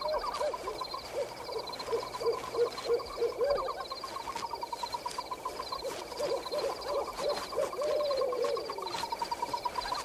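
Night-time animal-call sound effects: a repeated short low hooting call, about three a second, over a steady fast pulsing trill. The calls stop near the end.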